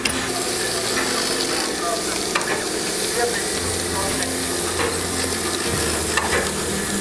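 Steam hissing steadily out low beside the wheels and cylinders of a narrow-gauge steam locomotive, 99 7240-7, starting a moment in.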